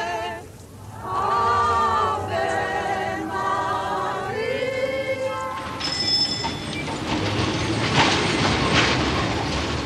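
A crowd singing a hymn together for the first half. After a cut, a tram runs past: a steady rumble of wheels on rails with a thin high squeal.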